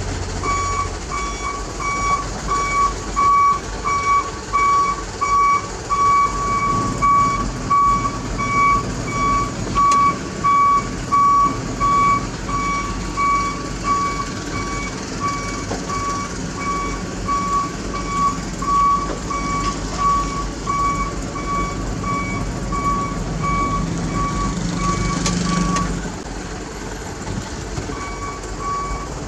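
Mitsubishi Fuso Canter truck reversing: its reversing alarm sounds a steady train of short beeps over the diesel engine running. Near the end the engine revs up, and the beeping stops for about two seconds before starting again.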